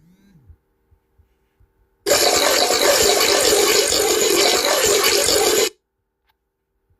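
Peeing sound effect: a stream of liquid splashing steadily into toilet water. It starts abruptly about two seconds in and cuts off suddenly about three and a half seconds later.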